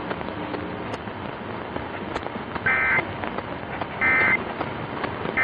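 Emergency Alert System end-of-message data tones received on a Kaito KA1121 radio: two short, identical bursts of two-pitch digital tone a little over a second apart, with a third starting right at the end, over steady radio static. The bursts signal the close of the monthly test message.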